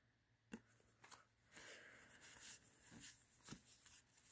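Faint rustling of 1990 Fleer basketball trading cards being handled and flipped through, with a few soft clicks.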